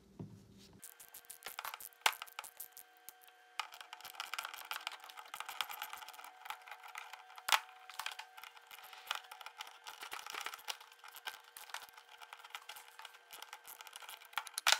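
Socket ratchet clicking in short runs as a nut on the cable end fitting is tightened to tension the cylinder's cable, with a few sharper metal clinks of the tools, the loudest about two seconds in and near the end.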